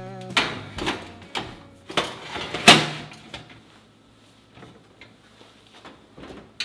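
Metal baking tray clattering and scraping onto an oven rack in a run of knocks, the loudest about two and a half seconds in; near the end the oven door shuts with a sharp clunk.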